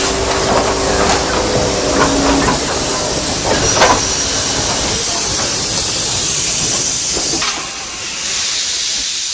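Steam locomotive venting steam: a loud, steady hiss with a thin high whistling tone over it from about four seconds in. The hiss drops off briefly near the end, then resumes higher-pitched.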